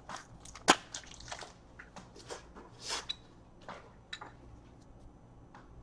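Trading cards and plastic card holders being handled on a tabletop: scattered light clicks and rustles, with one sharp plastic click under a second in and a longer rustle about three seconds in.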